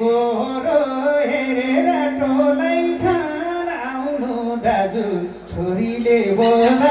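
Live Nepali dohori folk singing: a woman and a man sing their verses in turn into microphones, over musical accompaniment.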